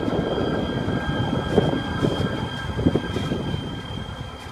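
Los Angeles Metro light-rail train running alongside at street level: a steady rumble, easing off a little near the end.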